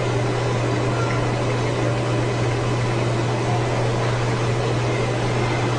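A steady low hum under an even hiss, unchanging throughout, with no distinct event.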